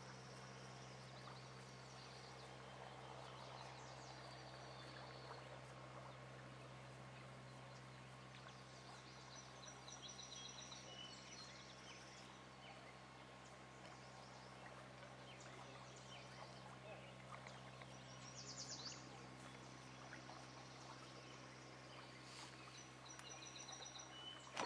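Faint outdoor riverbank ambience: small birds chirping and trilling now and then over a steady low hum, with one louder trill about three quarters of the way through.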